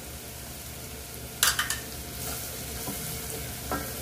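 Onion-and-spice sauce base sizzling as it fries in oil in a small stainless steel pot, stirred with a wooden spoon, with a few sharp knocks of the spoon against the pot about one and a half seconds in and a lighter one near the end.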